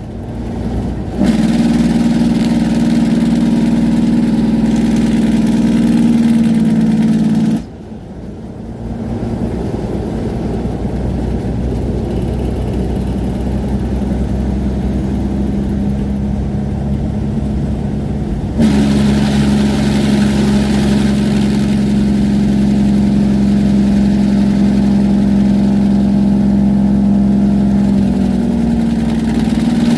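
Diesel truck's engine brake rumbling through the exhaust on a downhill grade, a steady droning note. It comes on about a second in and cuts out sharply about a quarter of the way, leaving rougher engine and road noise that builds gradually, then kicks back in abruptly a little past halfway and holds steady until just before the end.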